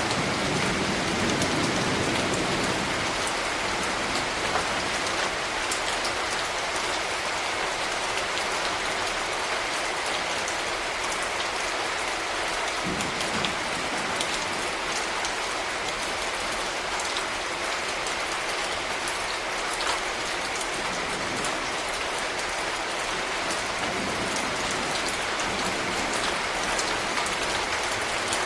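Steady rain falling, with many separate drops ticking close by. A low rumble swells in and out underneath a few times.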